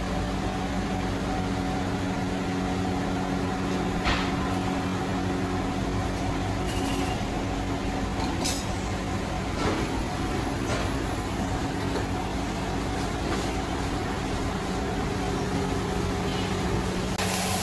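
Steady mechanical drone of electric fans in a hawker centre, a constant hum, with a few short knocks or clinks.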